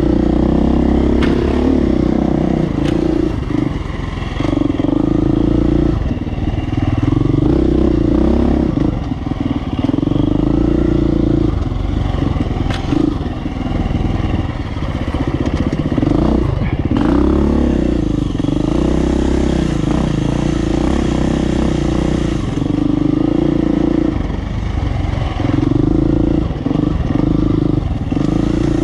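Off-road dirt bike engine riding a tight woodland trail, the revs rising and falling over and over as the throttle is opened and closed between turns, with occasional knocks from the bike over the rough ground.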